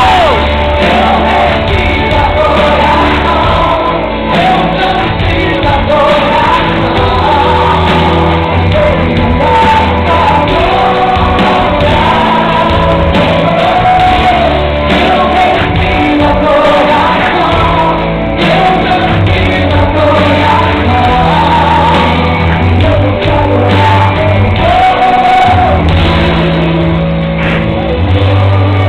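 A woman singing a gospel worship song into a microphone over loud amplified accompaniment with strong bass, heard through a hall PA.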